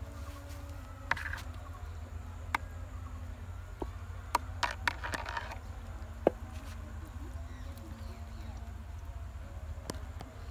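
Small fish being worked off a fishing hook by hand, with its bamboo rod and line close by: scattered sharp clicks and taps, a brief cluster of them about four to five seconds in, over a steady low rumble.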